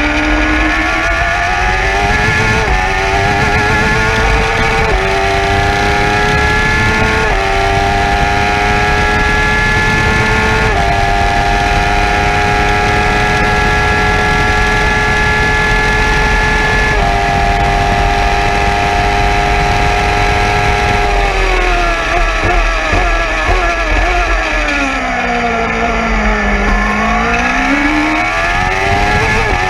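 Single-seater race car engine heard from the cockpit under full throttle, its pitch climbing and dropping sharply at each upshift, four times in the first eleven seconds. It then holds a high steady note down the straight with one more shift, falls for about five seconds as the car slows for a corner, and climbs again near the end.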